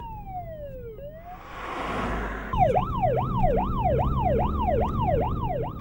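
Police car siren: a slow wail gliding down in pitch, a rushing whoosh that swells and fades, then a fast, regular up-and-down yelp about halfway through, which is the loudest part.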